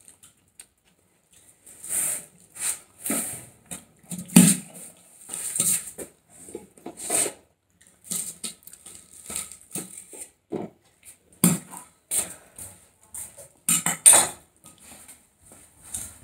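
A person eating close to the microphone: chewing and mouth noises in irregular short bursts, with light clinks of cutlery on a plate.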